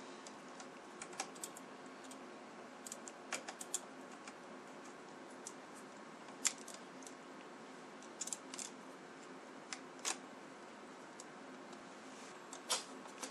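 Scattered light clicks and taps of a small screwdriver and fingers on the screws and plastic frame of a laptop's screen panel, with one sharper click about halfway through, over a faint steady hum.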